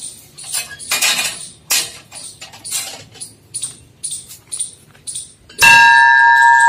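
Metal gate clanking as its bolt is drawn and it swings open, followed by light, regular steps. Near the end a large temple bell is struck once and rings loudly with a steady tone.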